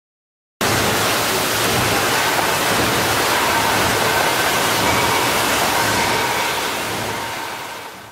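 Steady, loud hiss-like running noise of concrete roof tile production machinery, with faint steady whines through it. It starts abruptly about half a second in and fades away near the end.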